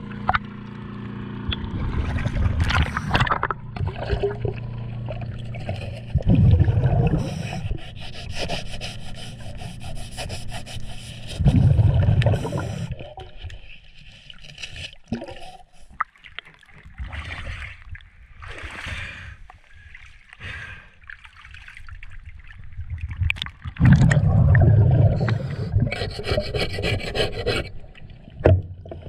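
Scraper and sandpaper rasping against a boat's trim tab underwater, cleaning off the residue left by the old zinc anode in irregular strokes. Several louder low rumbling bursts come and go.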